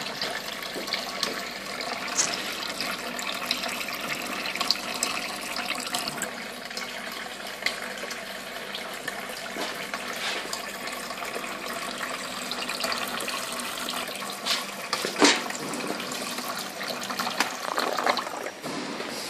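Water jetting steadily from a small bent nozzle onto water-repellent coated umbrella fabric, a constant hissing splatter. A few sharper knocks and rustles come in near the end as the fabric is handled.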